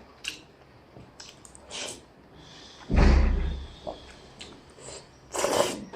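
A loud, heavy thump about three seconds in, with a few lighter knocks and clicks around it and a short rushing noise near the end.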